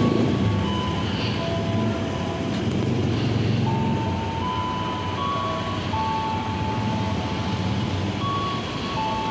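Electric commuter train moving slowly through the station with a steady low rumble. Thin high squealing tones at several pitches come and go over it.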